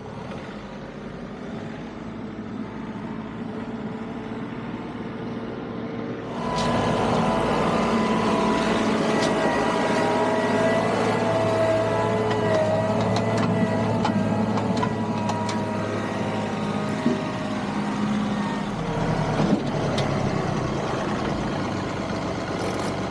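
John Deere 2038R compact tractor's three-cylinder diesel engine running, growing gradually louder and then stepping up sharply about six seconds in, with a wavering whine over the engine note.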